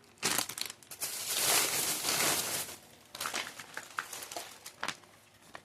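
Empty plastic snack wrappers crinkling as they are handled, a dense rustle in the first half followed by scattered lighter crackles.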